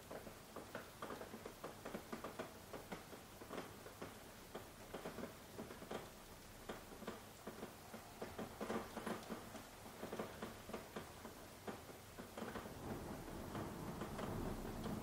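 Light rain: single drops tapping and pattering irregularly on a hard surface, a few a second, over a soft hiss. A low steady rushing builds up under the drops near the end.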